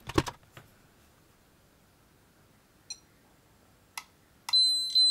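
Peak Atlas ESR70 capacitor meter giving a double high-pitched beep near the end, the signal that it has finished measuring a capacitor. This follows a few sharp clicks at the start as its button is pressed and its test clips are handled, and a couple of faint ticks.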